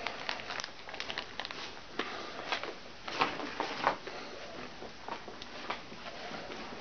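Irregular small clicks, taps and rustles in a small, cluttered room, a few of them sharper, about three and a half seconds in.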